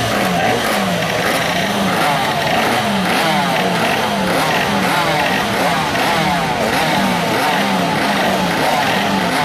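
Several MiniGP racing minibike engines revving together, throttles blipped over and over so their pitch rises and falls about once or twice a second, with higher engine notes sweeping above.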